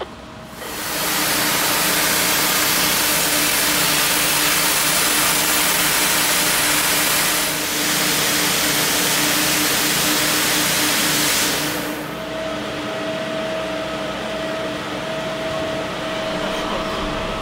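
Fire hose nozzle spraying a jet of water with a loud, steady hiss over a steady machine hum. The spray shuts off about twelve seconds in, leaving a quieter rush of water and a steady hum.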